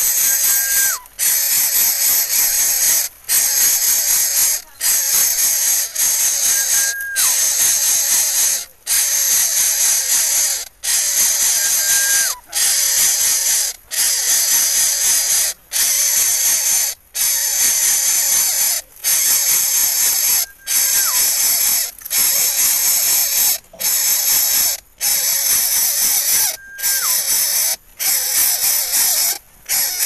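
Greater coucal nestling hissing loudly with its beak gaping, one harsh hiss after another, each a second or two long with a brief pause between, and a faint falling whistle now and then.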